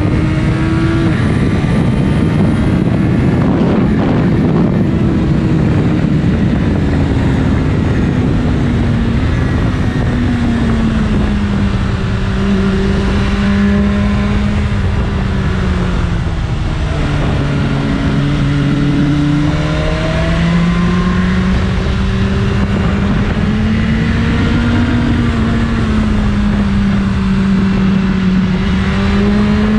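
BMW S1000RR inline-four engine with its stock exhaust, running with its pitch slowly rising and falling as the revs change, over a steady rush of noise.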